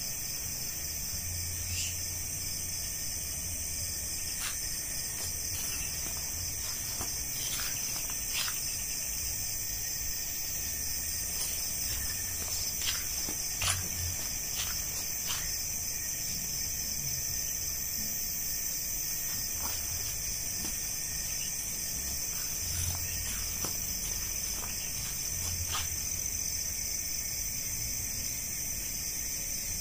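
Steady high-pitched chorus of crickets and other night insects, with a few faint crackles of footsteps on dry leaf litter.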